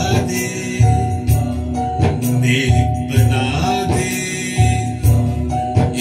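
A man singing a naat, a devotional song, into a handheld microphone over a backing track with held keyboard-like tones and a regular percussion beat of jingling strikes about twice a second.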